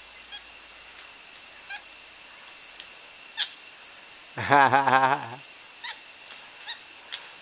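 One harsh, honk-like animal call lasting about a second, a little past the middle, over a steady high-pitched insect drone with a few faint chirps and clicks.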